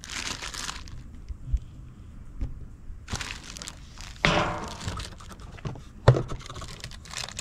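Plastic wrapping crinkling and a cardboard rifle box being handled and slid about, in several rustling, scraping bursts, with a single thunk about six seconds in.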